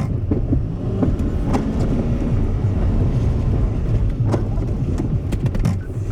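Truck running and driving, heard from inside the cab as a steady low engine and road rumble, with a few sharp clicks or knocks at uneven moments.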